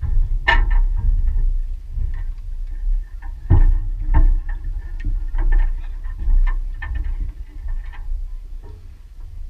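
Loose wooden planks of a makeshift plank bridge knocking and clattering irregularly as a motorbike is wheeled over them, the sharpest knocks about three and a half and four seconds in, over a steady low rumble.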